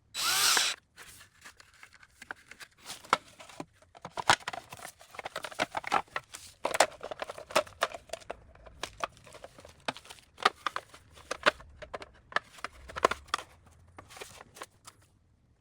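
Hands handling small hardware: a brief loud rasp at the start, then a long run of irregular clicks, taps and rustles.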